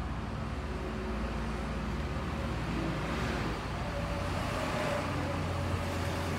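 A vehicle engine running steadily at low speed, with a higher hum joining about four seconds in.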